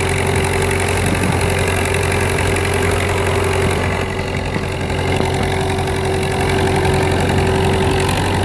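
UTB 650 tractor's diesel engine running steadily, with a steady whine over it that stops shortly before the end.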